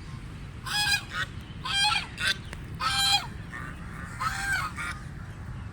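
Domestic waterfowl calling: four loud, half-second calls about a second apart, with a fainter one between them, over a steady low background noise.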